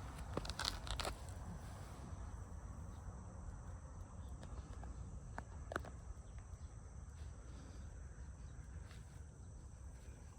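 Faint outdoor ambience: a steady high-pitched insect trill over a low rumble, with a few short taps or rustles in the first second and again around six seconds in.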